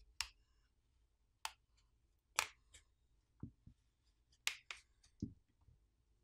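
Plastic catches of a OnePlus Nord CE4's plastic back housing snapping loose one by one as a plastic pry pick is run along the edge of the frame: a string of sharp clicks and snaps, the loudest about two and a half seconds in.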